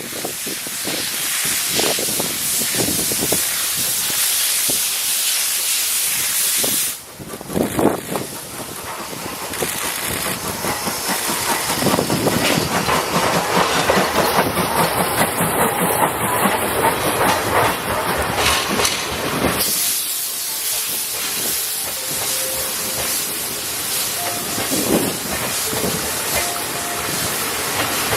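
C11 steam locomotive pulling a train away, with a steady hiss of steam and running noise from the train. The hiss dips briefly about a quarter of the way in, swells through the middle and eases somewhat toward the end.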